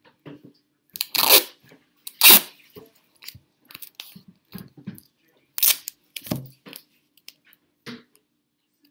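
Duct tape pulled off the roll in loud rips, about a second in, just after two seconds and twice around six seconds, with smaller crinkling and handling noises from the plastic bag and tape between them.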